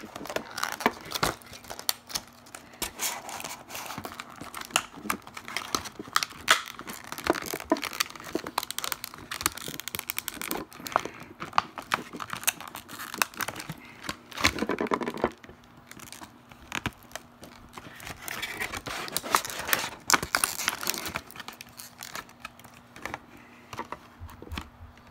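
Clear plastic blister packaging of a screwdriver set crackling, crinkling and snapping in irregular clicks as the screwdrivers are pried and pulled out of their tight-fitting tray.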